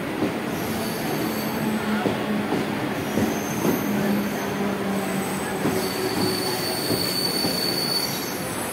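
Mumbai suburban electric local trains (EMUs) moving through the station: a steady rumble of wheels on rail with high-pitched wheel squeal and a few sharp clicks. A low hum holds through the middle, and a high whine sounds in the later seconds.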